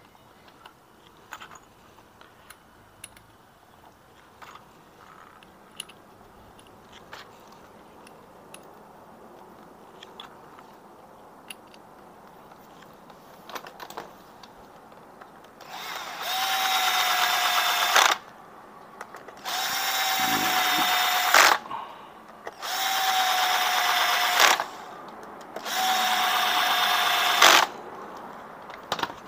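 Power drill/driver running four times, about two seconds each, with a steady whine that drops slightly as each of the four clutch spring bolts seats. Before that, light clicks of small metal parts being handled.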